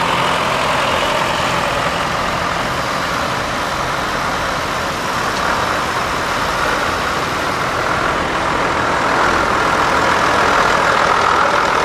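Diesel tractor engines running steadily as tractors drive slowly past, a Ford 7910 coming close by near the end, where the sound swells a little.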